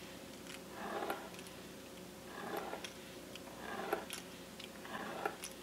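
Pastry wheel cutter rolling through thin dough on a wooden board in short strokes, about four of them evenly spaced, with a few light ticks.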